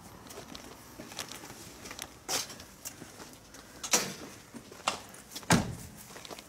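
Footsteps on pavement with a few sharp knocks and clacks, and a heavier thump about five and a half seconds in.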